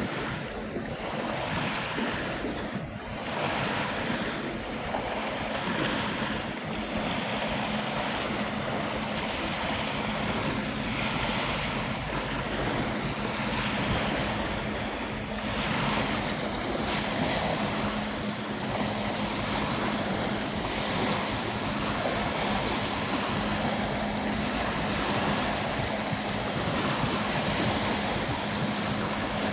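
Small waves breaking and washing up a sandy shore, with gusts of wind on the microphone. A steady low hum joins about three seconds in.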